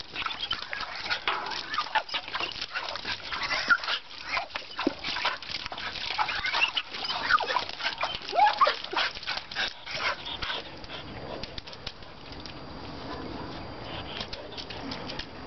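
A young border collie mix whining and yelping excitedly among rapid splashing of water as she leaps and snaps at it; the splashing and cries stop about ten seconds in, leaving only faint background noise.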